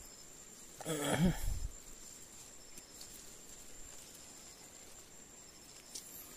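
A single short call about a second in, its pitch wavering up and down, over a faint steady high-pitched whine.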